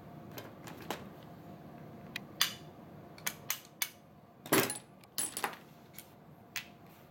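Sharp clicks and small clatters of metal and plastic parts being handled while a Lonex L4 (M4A1) airsoft electric gun is taken apart with a screwdriver, about ten in all, with a longer rattle about four and a half seconds in.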